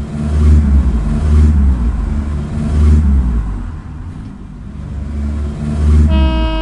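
Car engine sound effects dubbed over toy cars: a low engine rumble that swells and fades several times as cars go by. Near the end a horn starts and holds.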